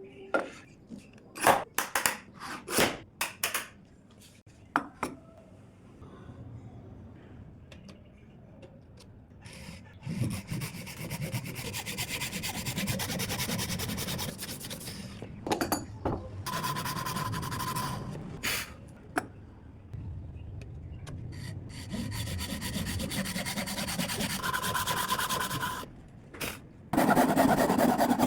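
Dozuki, a Japanese pull saw, cutting dovetails in wood, guided by a jig. A few sharp knocks and clicks come first, then the saw cuts in long runs of steady rasping strokes with short pauses between cuts.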